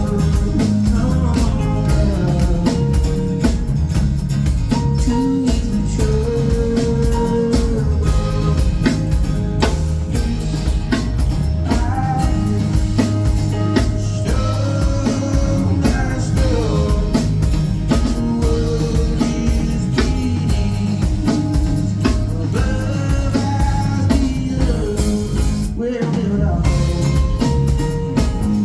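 Live band playing a song with a sung lead vocal over drum kit and guitar, with a steady beat.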